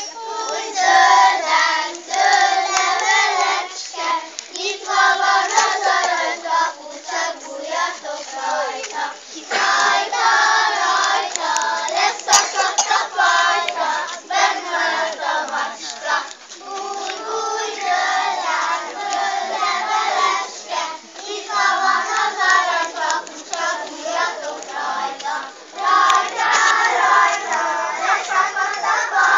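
A group of young children singing a song together in unison, in several phrases with short breaths between them, with a few sharp claps or knocks.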